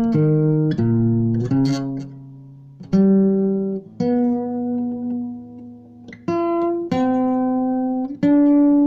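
Instrumental music: a melody of pitched, guitar-like plucked notes, some quick and some held and fading over a second or two.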